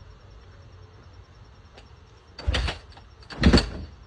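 Supermoto dirt bike engine revved twice in short bursts, about a second apart, over a low steady rumble.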